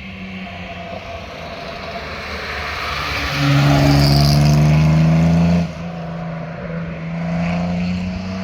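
A car's engine pulling hard as it drives past, rising in pitch under acceleration and loudest for about two seconds in the middle. The sound drops off abruptly about five and a half seconds in, then climbs in pitch again near the end.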